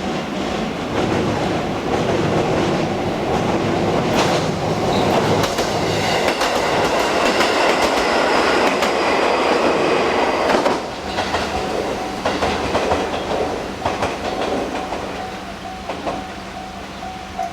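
Train passing over a level crossing, its wheels clacking over the rail joints, while the crossing's warning alarm rings in quick repeated dings. The train noise falls away about eleven seconds in, leaving the crossing alarm ringing.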